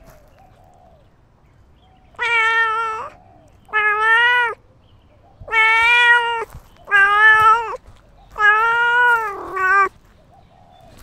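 Domestic cat meowing repeatedly: six loud, drawn-out meows starting about two seconds in, each lasting about a second except a short final one.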